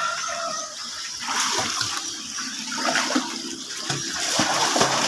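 Swimming-pool water splashing and churning as two children swim and thrash in it close by, busier and louder near the end.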